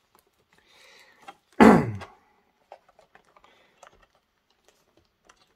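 Clear plastic blister packaging being handled: faint rustling and scattered light clicks and taps, with one short, loud falling sound about a second and a half in.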